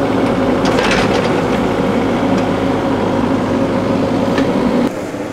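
Excavator's diesel engine and hydraulics running steadily, heard from inside the cab, with a few light clicks about a second in. Near the end the sound suddenly drops and the engine tone shifts.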